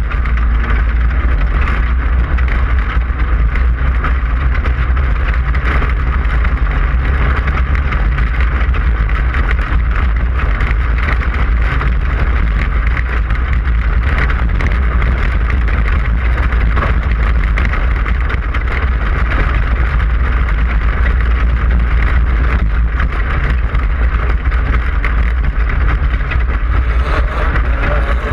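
Class 5/1600 off-road race car's air-cooled 1600 cc VW flat-four running hard and steady at racing speed, with a constant deep rumble.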